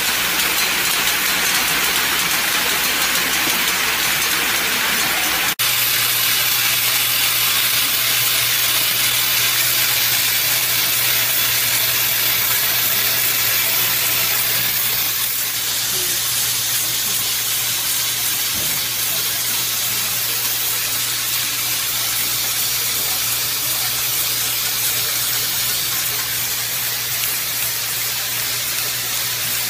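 High-speed push-pull cap assembly machine running: a steady, dense hiss-like mechanical noise with a steady low hum under it. The hum changes pitch abruptly about five and a half seconds in, and the noise eases slightly about fifteen seconds in.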